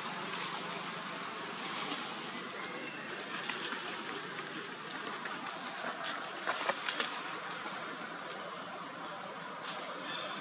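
Steady outdoor ambience: an even, high insect drone over a constant hiss, with a few short clicks about six to seven seconds in.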